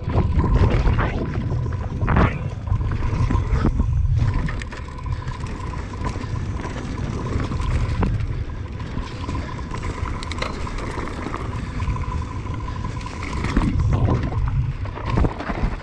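Mountain bike riding down dirt singletrack, heard from a bike-mounted action camera: heavy wind rumble on the microphone with tyre noise and frequent rattles and knocks as the bike goes over bumps. A faint steady high whine runs underneath.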